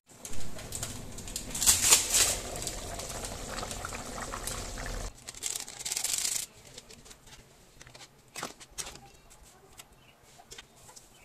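Snail curry boiling in an iron kadai, bubbling and hissing loudly for about five seconds. It then drops away to faint scattered clicks and taps.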